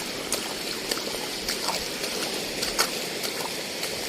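Shallow seawater washing and trickling among shoreline rocks, with a few sharp clicks, the loudest near three seconds in.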